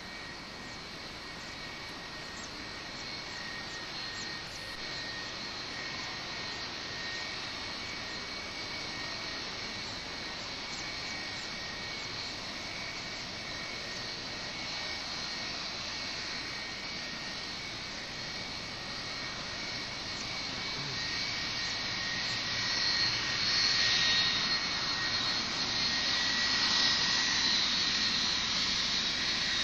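Jet engines of a Boeing 757-200, twin Rolls-Royce RB211 turbofans, whining steadily at low power while the airliner taxis, growing louder about two-thirds of the way through as it turns toward the microphone.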